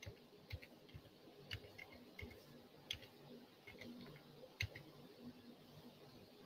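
Near silence with faint, irregular clicks of a computer mouse, about a dozen scattered through the pause.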